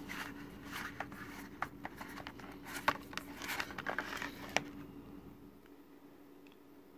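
Hands handling a plastic Blu-ray case on a wooden table: light rustling and scraping with a few sharp clicks, stopping about four and a half seconds in.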